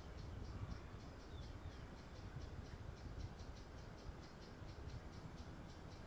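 A small bird repeating a short high chirp about four times a second, with two brief falling whistles about a second and a half in, over a low outdoor rumble.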